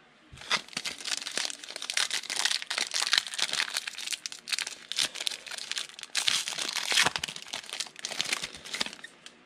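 The plastic wrapper of a trading card pack crinkling and tearing as it is pulled open by hand. A dense, uneven run of crackles starts under a second in and dies down near the end.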